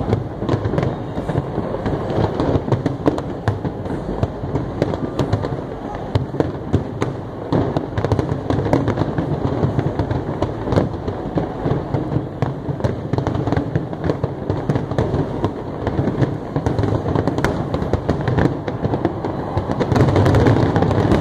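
Fireworks display going off continuously: a dense rapid crackle of many small bursts over a constant low rumble of shells exploding.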